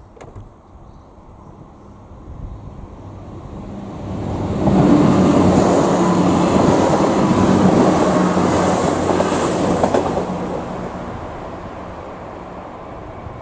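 Irish Rail 22000 class diesel multiple unit passing through a level crossing. Its engine hum and wheel-on-rail noise swell from about two seconds in, are loudest from about five to ten seconds, then fade away.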